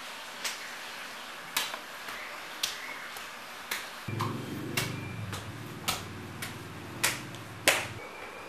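Slow footsteps on a hard floor: sharp clicks about once a second, the last ones loudest. A low hum comes in about four seconds in and stops near the end.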